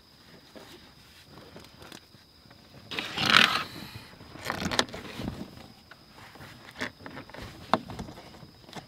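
A few irregular scraping and rustling sounds in a small room; the loudest comes about three seconds in, with smaller ones later.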